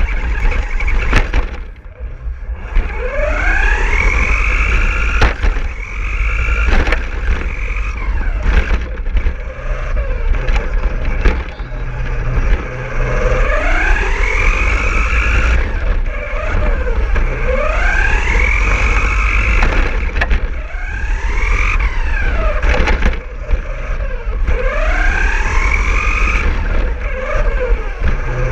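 RC car's motor and gears whining from the onboard camera, the pitch climbing each time it accelerates and dropping as it slows, over and over, with scattered knocks from the chassis.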